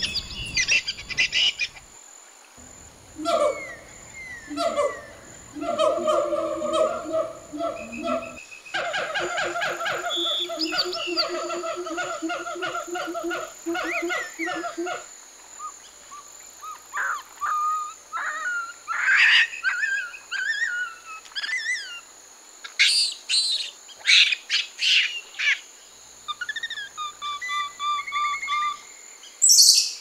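Wild animal calls: a series of repeated calls with a clear pitch for about twelve seconds, then chirping and whistled bird calls with quick rising and falling notes and a short trill near the end.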